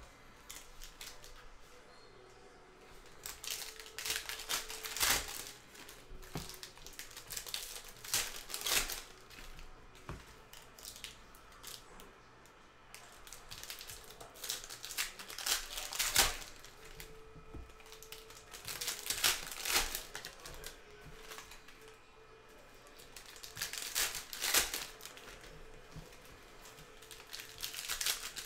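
Foil trading-card pack wrappers crinkling and tearing in short bursts every few seconds as packs are opened, with cards handled and stacked between them.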